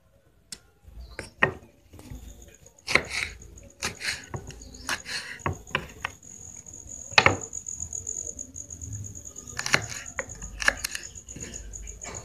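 Scattered knocks and clatter of a wooden cutting board and ingredients being handled. From about two seconds in, a steady high cricket chirr runs underneath.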